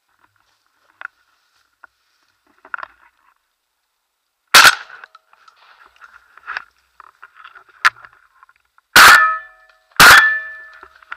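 Shotgun firing three shots: one about four and a half seconds in, then two more about a second apart near the end, each a sharp loud crack with a short ringing tail.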